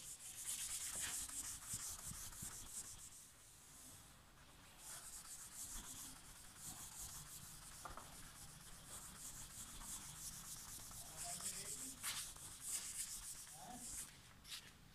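Whiteboard eraser rubbed back and forth across a whiteboard in quick repeated strokes, wiping off marker drawings. It comes in bouts, with short breaks about four seconds in and again near eleven seconds.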